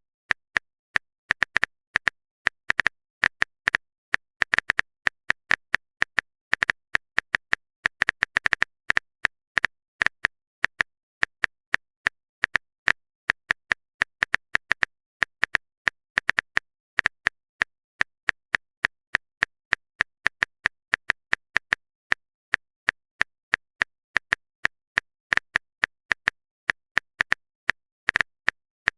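Phone-keyboard typing sound effect: a long run of short, sharp clicks, irregular and bunched at a few a second, like quick taps on a touchscreen keyboard.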